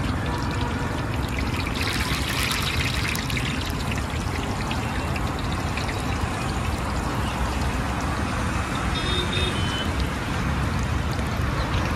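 Batter-coated boiled eggs (egg bondas) deep-frying in a large kadai of hot oil: a steady crackling sizzle, growing louder and busier for a second or so about two seconds in.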